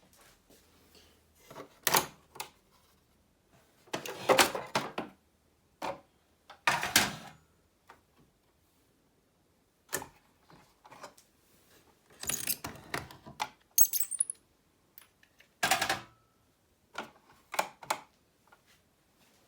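Irregular clattering, clicking and knocking of hard plastic and metal parts being handled, in about a dozen separate bursts with short pauses between them and no motor running.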